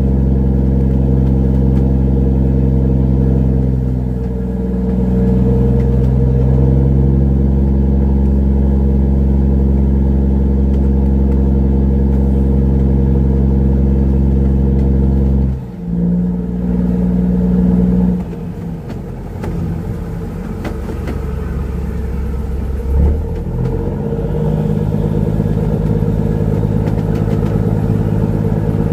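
Fishing trawler's engine running loudly and steadily, its pitch sagging briefly and recovering. About halfway through the sound changes abruptly, and after that the engine runs rougher and less even.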